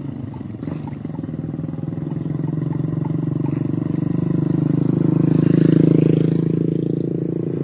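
Small motorcycle engine running steadily as it approaches along the road, growing louder to a peak about six seconds in, then easing off slightly.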